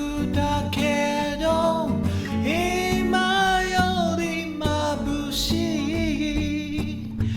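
A man singing a melody to his own acoustic guitar accompaniment, a Gibson J-45 steel-string.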